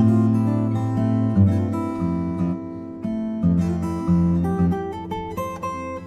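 Background music: an acoustic guitar playing a melody of plucked notes over strummed chords.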